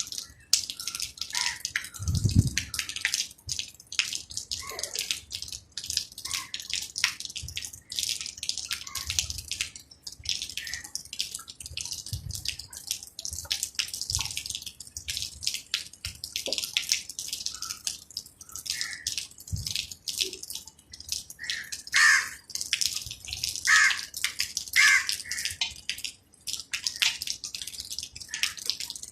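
Rain dripping and splashing in close, irregular drops, with a run of louder splashes a little past the middle and a low thud about two seconds in.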